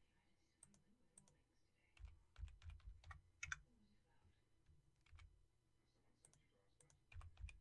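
Faint, irregular keystrokes on a computer keyboard, a few separate clicks with soft low thumps between long gaps.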